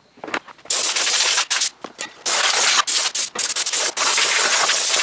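Compressed air blow gun blasting dust and debris out of a lawn tractor's engine bay: several short hissing blasts, then a longer steady blast from about three and a half seconds in.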